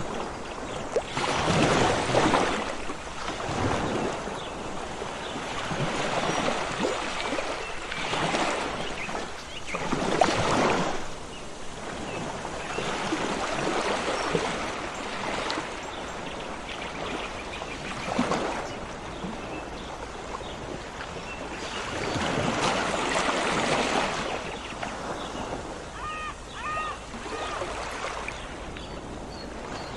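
Sea waves washing onto the shore, the noise swelling and falling back in irregular surges every few seconds. A bird gives a few short calls about four seconds before the end.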